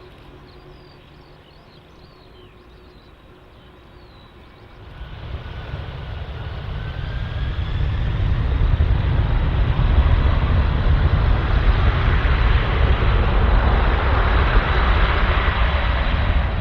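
Jet engines of a Boeing 747 freighter swelling from faint to loud about five seconds in, then a steady heavy jet noise with a rising whine mixed in, as the aircraft comes up to power or passes close by. A few bird chirps are heard before the engines build.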